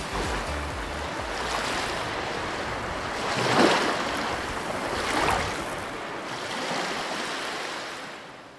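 Ocean surf washing in, with two louder surges about three and a half and five seconds in, fading out near the end.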